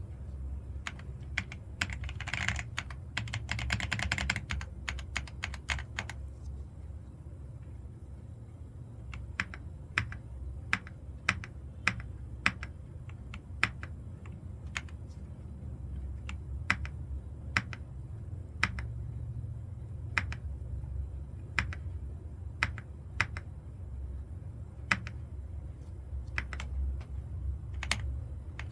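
Keys of an Ajazz AK820 mechanical keyboard being pressed: a quick flurry of keystrokes a couple of seconds in, then single key clacks spaced roughly a second apart, over a low steady hum.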